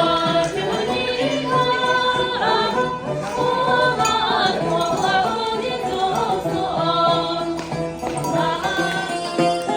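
Music with a group of voices singing long, held notes together.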